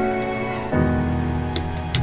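Background music of sustained chords, changing about two-thirds of a second in, over a faint sizzle from the simmering cream sauce. A couple of light clicks near the end, as a metal spatula goes into the pan.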